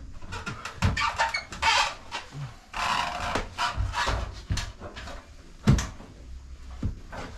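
Knocks, thumps and scraping of a man climbing up through a ceiling access hatch into a roof cavity, with a sharp knock a little before the end.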